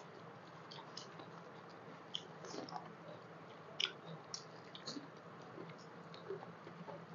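Faint, wet squishing of hands mixing rice with mashed bharta on a banana leaf, with scattered small clicks and smacks of eating; the sharpest click comes a little before the fourth second.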